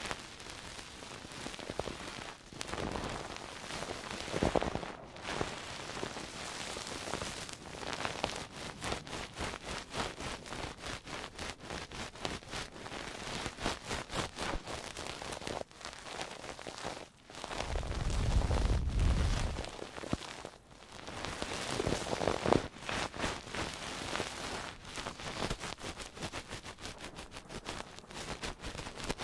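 Close-miked ASMR trigger sounds: dense crackling and rustling of an object rubbed and tapped against a binaural microphone, like ear-cleaning noise. A deep rumble of handling comes in about two thirds of the way through.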